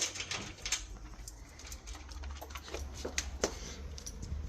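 Irregular light clicks and taps, a dog's claws on a hard floor as it moves about, over a low steady hum.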